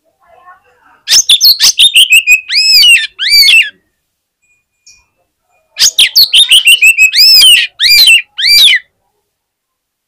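Oriental magpie-robin (kacer) singing its loud 'fighter' song, the kind played to get other magpie-robins worked up. There are two matching phrases about four seconds apart, each a rapid run of short notes falling in pitch, ending in a few sweeping, arched whistles.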